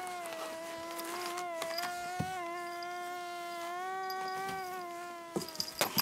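Mosquito buzzing sound effect: a steady, slightly wavering whine that stops about five seconds in. Near the end a quick run of sharp clicks and knocks.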